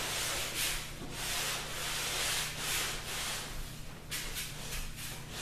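80-grit sandpaper rasping over a wood-strip kayak deck in repeated back-and-forth strokes, about two a second.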